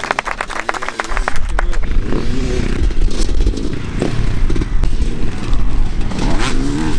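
A crowd clapping for about the first second. Then motocross dirt bike engines revving and rising and falling in pitch as the bikes ride past on a dirt track, louder again near the end.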